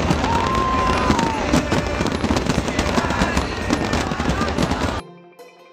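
A fireworks display: a dense, rapid crackle of many bursts going off together. It cuts off suddenly about five seconds in, and gentle chiming music takes over.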